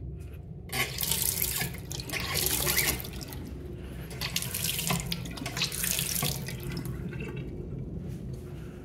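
Faucet water running into a porcelain restroom sink and down the drain. It starts about a second in and eases off near the end.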